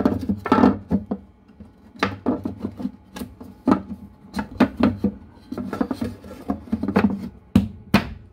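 Irregular knocks, taps and scraping of objects being handled, over a faint steady low hum.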